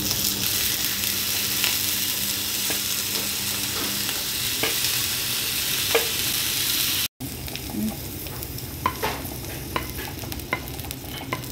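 Chopped tomato pieces sizzling in hot oil in a nonstick frying pan as they are pushed in off a wooden chopping board and stirred with a wooden spatula, with a few sharp clicks. After a sudden cut about seven seconds in, the sizzle is quieter, with scattered light knocks of the wooden spatula as okra pieces are stirred in the pan.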